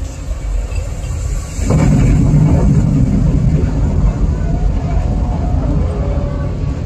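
Rocket-launch sound effect played through a theatre sound system: a deep engine rumble that swells in suddenly about two seconds in and keeps going.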